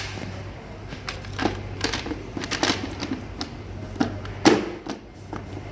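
Irregular clicking and clattering of parts and hand tools being handled, with a louder knock about four and a half seconds in, over a steady low hum.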